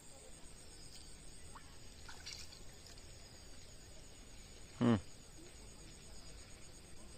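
Quiet outdoor ambience with a steady high buzz of insects and a few faint bird chirps; about five seconds in, one short, loud, low-pitched call.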